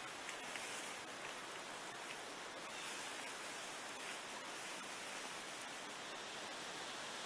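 Dry leaves and a plastic tarp rustling with small crackles as a person crawls into a leaf-covered tarp shelter, over a steady hiss.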